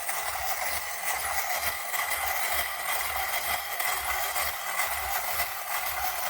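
Clockwork mechanism of a vintage wind-up tin toy whirring steadily as it runs.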